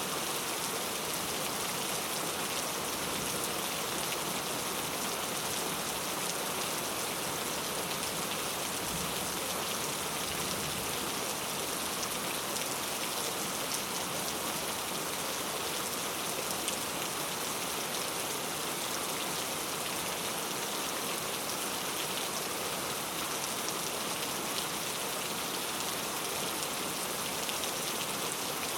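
Steady rain falling, an even hiss of many drops with fine patter on surfaces.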